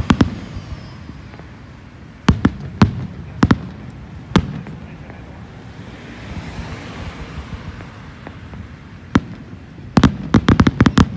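Aerial fireworks shells bursting with sharp bangs, a few scattered over the first few seconds, then a quieter stretch, then a rapid volley of bangs in the last second or so.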